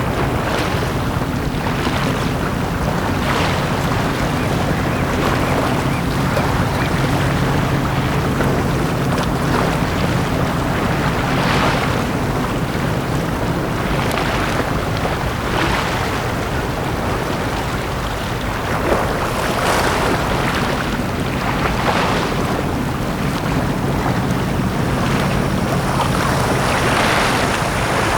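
Small sea waves breaking and washing up a beach, a fresh surge of surf every one to three seconds, over a steady low hum.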